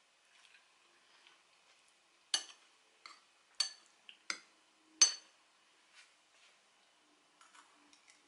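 A metal spoon and fork clink against a glazed ceramic bowl as food is scooped: five sharp clinks, each with a short ring, over about three seconds, the last the loudest.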